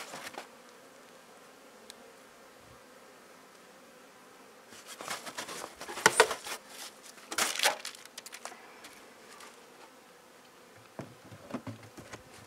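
Honeybees buzzing around the hive, a faint steady hum. Loud rustling and crinkling from a plastic-wrapped foam insulation board being handled comes about five and seven and a half seconds in, and a few light knocks near the end as the hive lid is handled.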